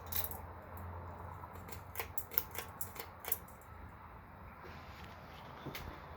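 Ceiling fan running with a low hum, with a quick series of sharp clicks a couple of seconds in.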